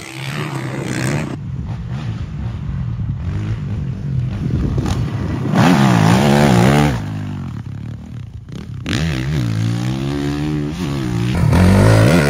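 Dirt bike engine revving, its pitch swinging up and down repeatedly, loudest about halfway through and again near the end.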